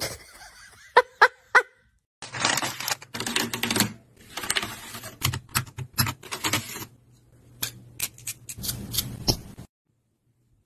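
Three short, sharp high-pitched squeaks about a second in, then a long run of plastic clicking, clacking and scraping as a computer keyboard is cleaned between its keycaps with a small tool.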